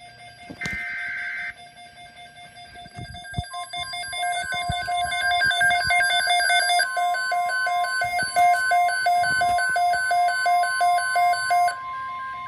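NOAA Weather Radio emergency alert. A short burst of buzzy SAME digital header data comes about half a second in, and an alert radio's electronic alarm beeps rapidly, about three or four beeps a second. From about three and a half seconds in, the steady 1050 Hz weather radio warning tone sounds over the beeping.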